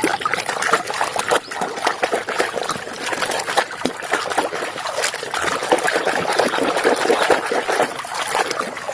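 Water running and splashing with a dense, steady spatter as a muddy toy vehicle is washed clean.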